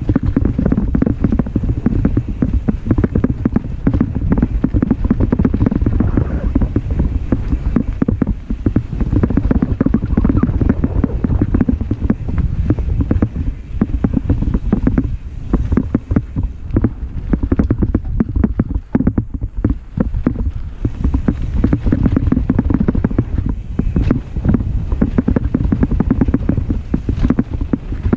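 Mountain bike riding over a dirt singletrack trail: a steady low rumble of tyres and wind on the microphone, with constant rattling knocks from the bike over the bumps.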